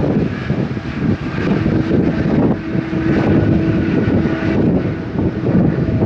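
Wind buffeting the microphone, with the distant whine of a twin-engine jet airliner's turbofans rolling on the runway. The whine comes up about one and a half seconds in and fades a few seconds later.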